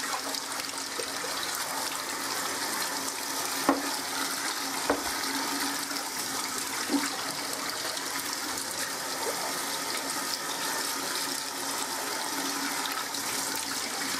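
Tap water running into a stainless steel saucepan of potato chunks as they are rinsed and the water tipped off, a steady splashing. Three short knocks stand out a few seconds in.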